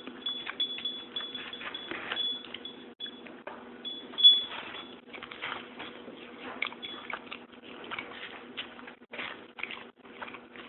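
A cat eating and licking from a small bowl: irregular wet licking and chewing clicks, with one sharp knock about four seconds in.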